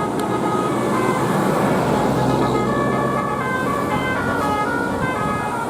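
Bus telolet horn: a set of musical air horns playing a quick tune of stepped notes. Engine and road noise run underneath.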